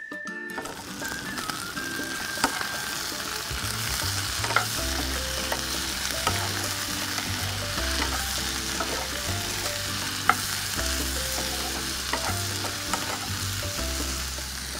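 Canned mackerel, onions and tomatoes sizzling in oil in a frying pan, stirred with a wooden spatula that gives scattered sharp knocks and scrapes against the pan.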